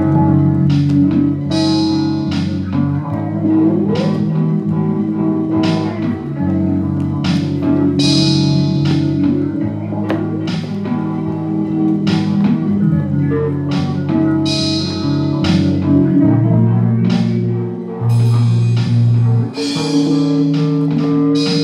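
Rock song with electric guitar and a bass line that holds long notes, changing every second or two, over regular drum and cymbal hits about once a second.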